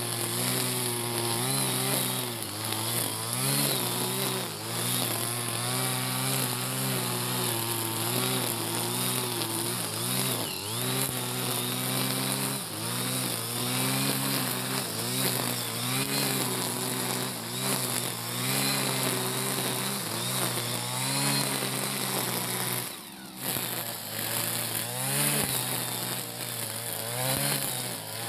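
Backpack brush cutter engine running at high speed as it cuts tall grass, its pitch wavering up and down with each swing through the grass. The sound dips briefly about two-thirds of the way through.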